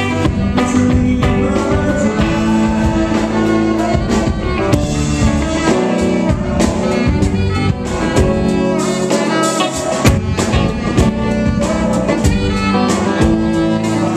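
Live band playing with saxophone out front over electric bass, guitar and drum kit.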